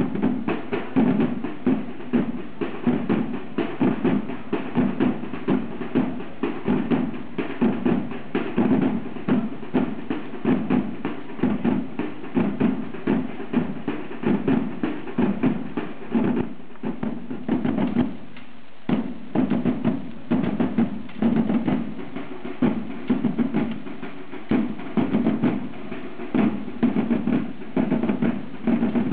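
A group of side drums played together in a fast, driving rhythm of dense strikes, with a brief let-up about eighteen seconds in before it picks up again.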